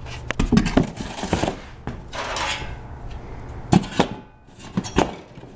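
Sheet-metal side skirt panels and cardboard being handled in a shipping box: scraping and rustling, with irregular metallic clanks and knocks, the sharpest a few seconds in.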